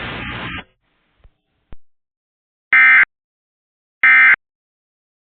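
Emergency Alert System end-of-message code: short, loud, identical bursts of buzzing data tones, two about 1.3 seconds apart and a third just beginning at the very end. Before them, steady hiss cuts off suddenly well under a second in, followed by a faint click.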